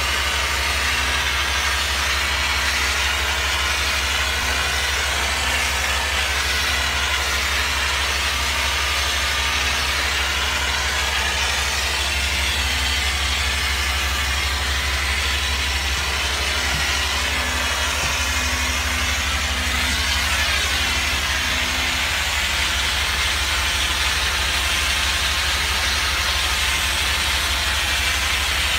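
Pressure washer spraying through a ball-valve wand to rinse cleaning solution off house windows: a steady hiss of water spray over a continuous low engine hum.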